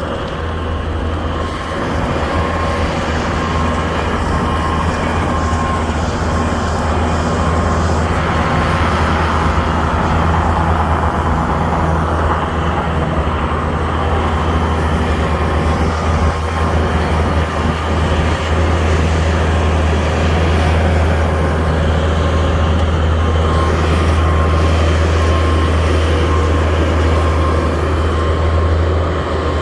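Skid steer engine running steadily under load, a deep hum with a thin steady whine above it.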